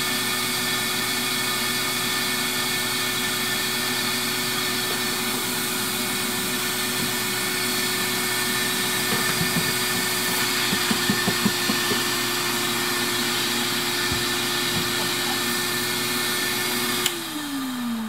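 Vacuum motor of a Seed EZ vacuum seeder running with a steady hum, with a few light knocks as the seeder is handled about halfway through. Near the end the motor is switched off and its hum falls in pitch as it spins down.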